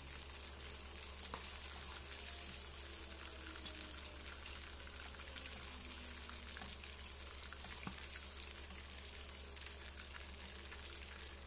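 Faint, steady sizzle of chicken gizzards frying in oil, with a few small pops.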